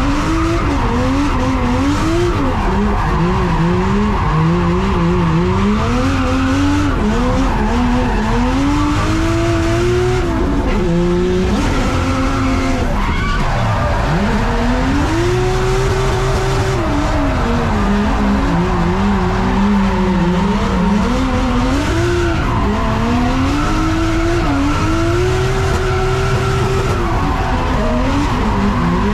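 Drift car's engine heard from inside the cabin, revving up and down again and again while the tyres squeal and skid through the slides. About halfway through the revs drop sharply and then climb back up.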